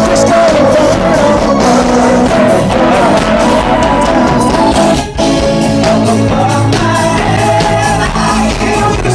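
Live rock band playing: a lead singer over electric guitars and a drum kit. The band drops out for a split second about halfway through, then comes straight back in.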